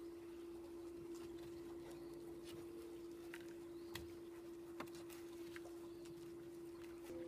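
Faint scattered clicks and light handling noises as a glued PVC pipe section is pushed into a coupling, over a steady faint hum.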